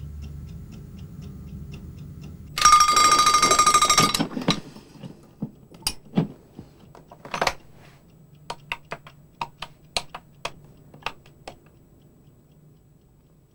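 A mechanical alarm clock ticks faintly, then its bell rings loudly for about a second and a half before stopping. After it come scattered handling clicks and a run of clicks from the keys of a push-button telephone being pressed.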